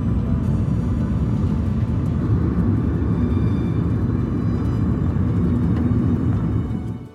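Steady low rumble of a car driving, heard from inside the cabin: road and tyre noise with the engine underneath. It stops abruptly near the end.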